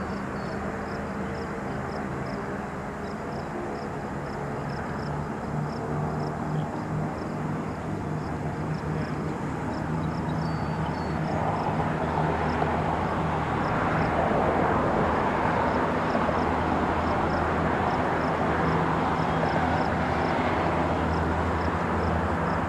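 Boeing B-29 Superfortress FIFI's four Wright R-3350 radial engines running at high power as the bomber rolls down the runway. The sound grows louder about halfway through as it comes closer.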